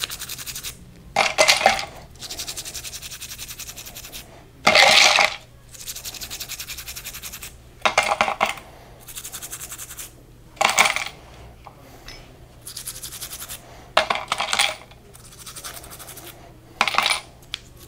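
Toothbrush scrubbing small metal differential parts in solvent: rapid bristle strokes, broken about six times by a short, louder clatter of metal parts against the jar.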